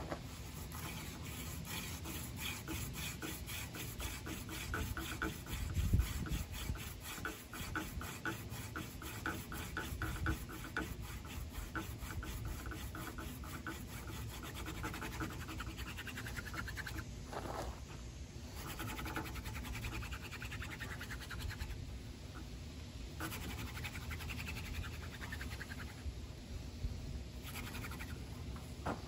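Hand-drill friction fire-making: a horseweed spindle spun back and forth between the palms, its tip grinding in the divot of a water oak fireboard, making a rapid rhythmic scratching broken by a few short pauses. This is the drilling that grinds out hot dust to form an ember.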